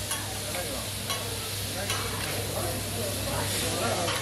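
Meat and vegetables sizzling on a large round solid-iron Mongolian barbecue griddle as a cook stir-fries them with flat metal spatulas. The sizzle is steady, with irregular scrapes and taps of the spatula blades on the iron.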